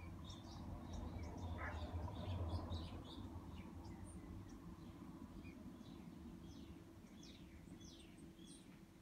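Faint birdsong: many small birds' short, high chirps, mostly falling in pitch, scattered all through, over a steady low outdoor rumble that swells about two seconds in.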